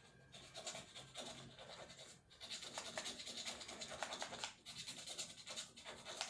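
Faint scratching and crackling as the shell of a toy dinosaur egg is handled and worked by hand, a dense run of fine ticks with a short pause a little after two seconds.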